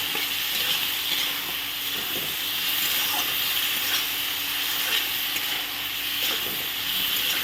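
Potatoes, tomato masala and freshly added green peas sizzling steadily in oil in a kadai, with a few faint clicks here and there.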